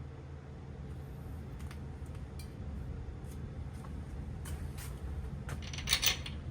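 Light clicks and small scraping sounds of metal parts and tools being handled, with a louder brief clatter about six seconds in, over a steady low hum.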